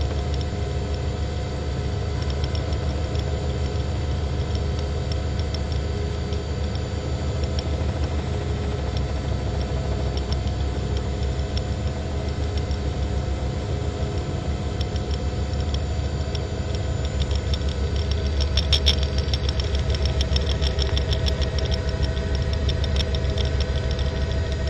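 News helicopter's engine and rotor running steadily, a low rapid throbbing with a steady whine over it. From about 18 seconds in, a dense run of sharp crackling clicks sounds over it.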